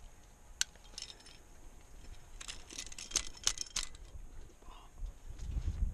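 Metal climbing gear clinking: carabiners and protection on a harness rack knocking together, a couple of single clicks and then a quick run of jangling clinks. Low rumbling noise comes in near the end.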